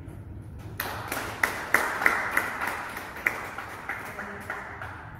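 Audience applauding, beginning about a second in and dying away near the end.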